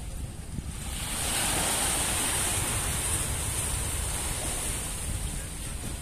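Small sea waves washing at the shore, a hiss that swells about a second in and eases off near the end, over a steady low rumble of wind on the microphone.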